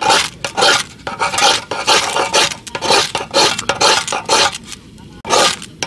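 Mora knife's spine scraped repeatedly down a ferrocerium fire-starter rod to throw sparks onto tinder, in quick rasping strokes two or three a second, with a short pause near the end before a last stroke.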